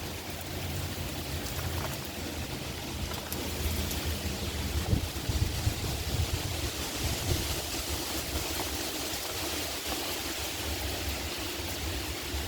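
Heavy rain pouring down during a windstorm, with gusts of wind buffeting the microphone as a low rumble.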